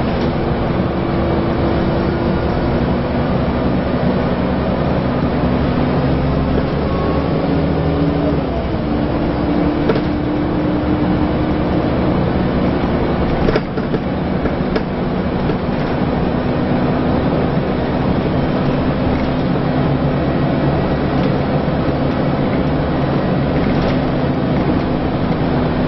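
Scania L94UA articulated bus heard from inside while driving: engine running with the whine of its ZF automatic gearbox, a few steady tones that shift in pitch about eight seconds in, and a few short knocks from the body.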